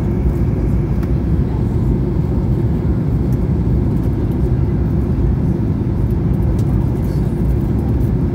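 Steady, deep rumble inside a Boeing 737's cabin in flight on descent: jet engine and airflow noise with no change through the stretch.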